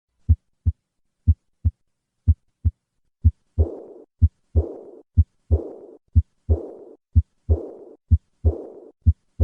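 A patient's heart sounds heard through a stethoscope: paired lub-dub beats about once a second. The first three beats are clean. From about three and a half seconds in, a high-pitched hiss follows each second heart sound and fades away. This is the diastolic decrescendo murmur of aortic regurgitation.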